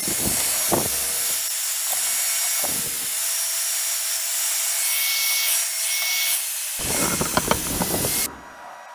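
A power tool working steel angle iron: a steady harsh rasping hiss with a few knocks near the start and a cluster near the end, cutting off sharply a little before the end.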